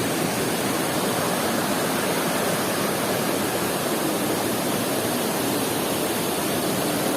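Waterfall water rushing: a steady, even noise with no breaks.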